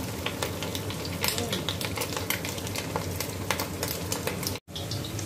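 Breaded pork chop deep-frying in hot oil in a stainless steel pan: steady sizzling thick with small crackling pops. The sound drops out for a split second near the end.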